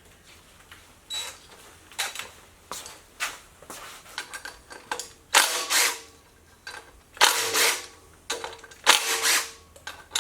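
A power tool running in short bursts, four or five of about half a second each from about five seconds in, taking bolts off the front of a Ford 302 V8, with a few light clicks and clanks of tools and parts before them.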